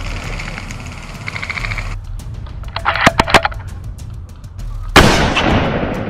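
A quick cluster of sharp snaps about three seconds in, then a loud shot-like bang about five seconds in that fades away over about a second.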